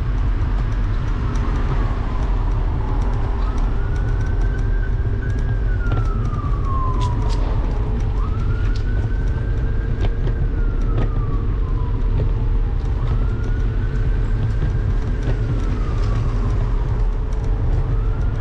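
Emergency vehicle siren wailing, each cycle rising quickly, holding, then falling slowly, repeating about every four and a half seconds. Under it run a steady hum and a heavy low rumble of wind and ride noise on a moving scooter's handlebar-mounted microphone.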